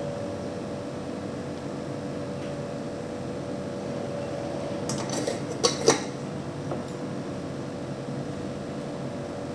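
Steady kitchen room hum with a faint held tone, and a few light clinks of eating utensils against dishes about five to six seconds in.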